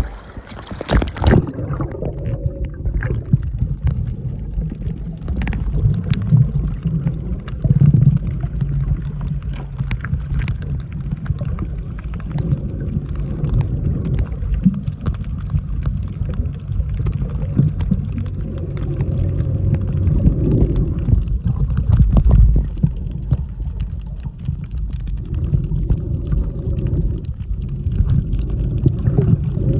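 Water sloshing and moving around a camera, heard mostly underwater as a muffled low rumble with scattered clicks and bubbling. A splash about a second in.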